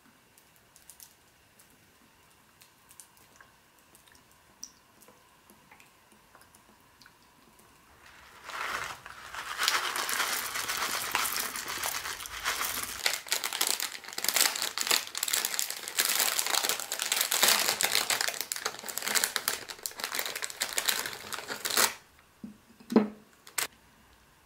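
Granola poured from a crinkly plastic pouch into a bowl of oat milk: the bag crinkles and the clusters rattle in for about thirteen seconds, then stop abruptly. A couple of light clicks follow near the end.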